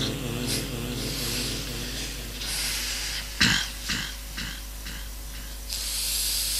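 A man clearing his throat and coughing close to a microphone: one sharp cough about halfway through, then several shorter rasps, with hissing breaths drawn in before and after. A steady low electrical hum runs underneath.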